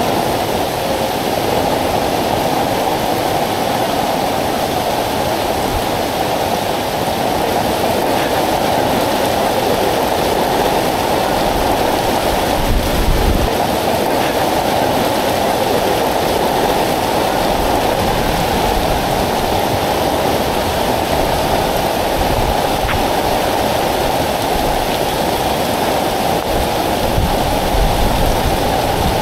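Heavy rain pouring onto deep floodwater and onto an umbrella overhead: a loud, dense, steady hiss, with a brief low bump about thirteen seconds in.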